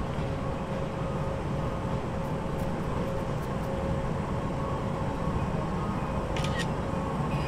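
Two 381-series limited express electric trains: one stands with a steady hum while the other rolls slowly in and draws up beside it. There is a low rumble throughout, with a few short sharp clicks about six and a half seconds in.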